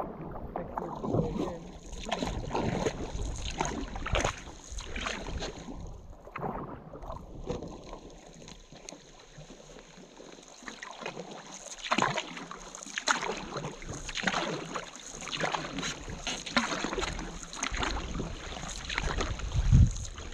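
Canoe moving on a lake in hard rain, with irregular splashes and drips from the paddling and rain falling on the water. A low thump comes near the end.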